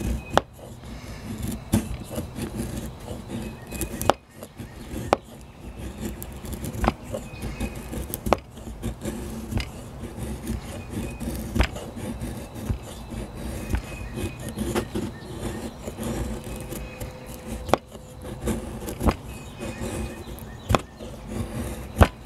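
Real Steel knife shaving curls off a stick of resin-rich fatwood. Each downward stroke ends in a sharp tap as the blade meets the plastic tool box lid, about one every one to two seconds, over a low steady background hum.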